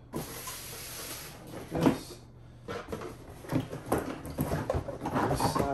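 Cardboard box and packaging being handled: rustling and scraping, a sharp thump about two seconds in, then a run of irregular knocks and bumps.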